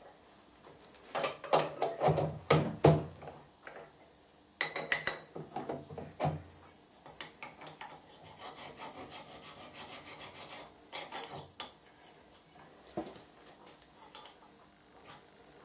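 Hand file rasping across a small metal part clamped in a milling-machine vise. Two groups of strong strokes come in the first half, followed by a run of lighter, quicker strokes, and then only a few scattered ticks.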